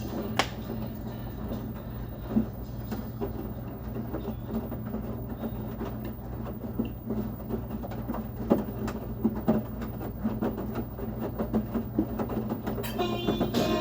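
LG commercial washing machine running, a steady low hum with irregular knocks and clatter from the load tumbling in the drum, a few knocks louder than the rest.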